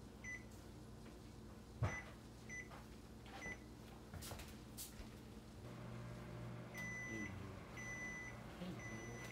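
Over-the-range microwave oven being set: short keypad beeps as its buttons are pressed, with a single sharp knock among them. At about six seconds the oven starts with a low steady hum, and longer beeps then sound about once a second.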